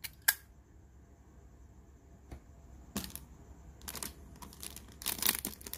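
Metal Zippo lighters being handled: one sharp click just after the start, a few scattered lighter clicks, and a cluster of clicks and rustling near the end.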